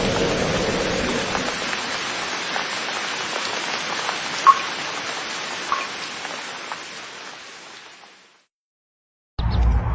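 Steady rain falling, with the tail of a thunder rumble dying away in the first second or two and a few louder drips. The rain fades out about eight seconds in, and after a second of silence a different sound starts near the end.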